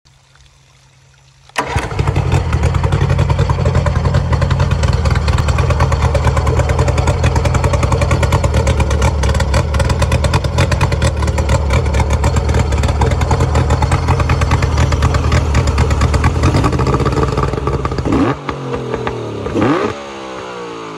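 Mercury 60/45 jet outboard motor catching about a second and a half in and running loud and steady at a fast idle. Near the end it drops lower, its pitch rising and falling as the revs change.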